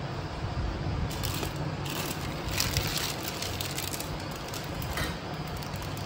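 A thin polythene sheet crinkling and rustling as it is lifted and folded over balls of dough, loudest between about one and five seconds in, over a steady low hum.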